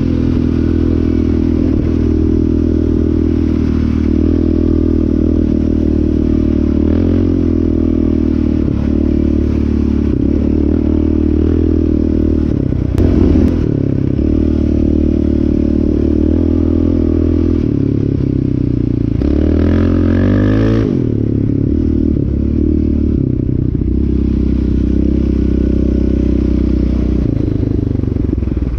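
Yamaha Raptor 700R quad's single-cylinder four-stroke engine running as it is ridden, mostly steady with rises and falls in pitch about halfway and about two-thirds of the way through. A brief clatter about halfway through.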